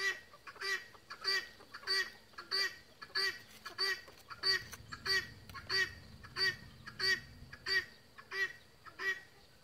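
An animal, most likely a bird, calling a short pitched note over and over at a very even pace, about three calls every two seconds.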